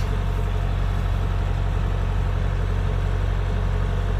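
Kubota DC-105X combine harvester's diesel engine running steadily with a low, even hum.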